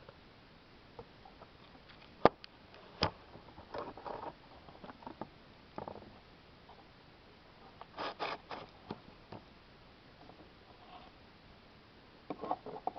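A Jerusalem cricket (Stenopelmatus) chewing a cricket: scattered crunching and crackling clicks in short clusters a few seconds apart, with two sharp clicks a couple of seconds in.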